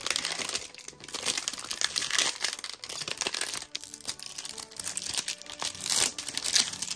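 Plastic wrapping of a Zuru 5 Surprise toy ball being crinkled and torn open by hand, a steady run of crackling rustles.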